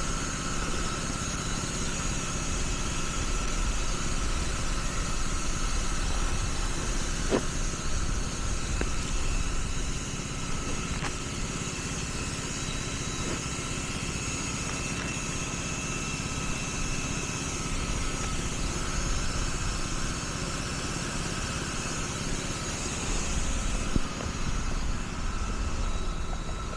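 Steady mechanical hum of a running motor, with a low rumble and a constant whine, and a few faint clicks.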